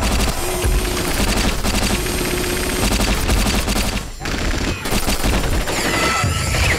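Heavy automatic gunfire from an ED-209 combat robot's twin arm-mounted guns, firing in rapid continuous bursts. The fire breaks off briefly a little past halfway.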